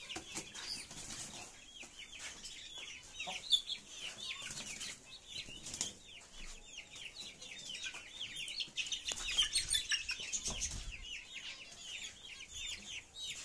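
A group of chicks peeping continuously: many short, falling chirps overlap all through, with a few brief scuffling noises among them.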